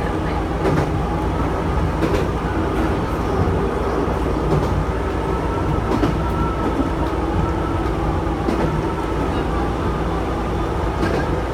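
Chichibu Railway electric train running, heard from inside the front car: steady rumble with a constant motor whine, and a handful of sharp clacks as the wheels pass rail joints.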